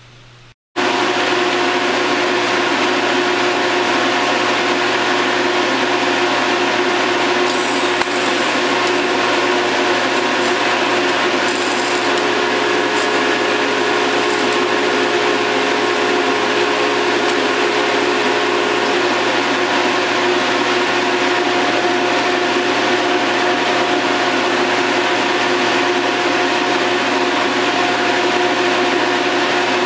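TIG welding rig running: a steady electrical hum with an even hiss, unchanging throughout, after a short break in the sound just under a second in.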